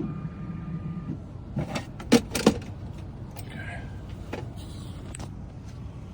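Metal keys and small locksmith tools being handled: a cluster of sharp clicks and clacks about two seconds in, two of them loud, with a few lighter clicks after, over a steady low hum.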